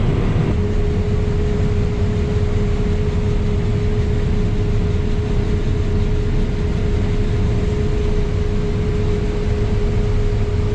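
Combine harvester running steadily in a corn field, a constant machine drone with a thin steady hum held throughout.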